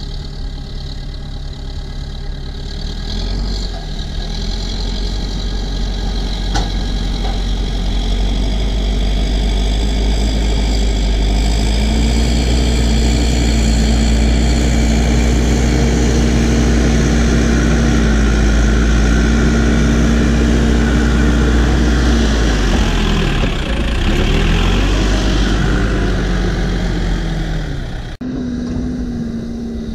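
New Holland B95 backhoe loader's diesel engine running under load as the machine pushes dirt with its front bucket, growing louder as it comes close. The engine pitch dips and rises again about two-thirds through, and near the end the sound changes abruptly to a steady, farther-off engine hum.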